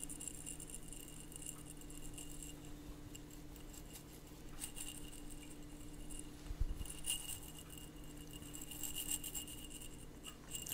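A small glass jar handled close to the microphone, with something inside it rattling softly in stretches. A faint steady low hum runs underneath.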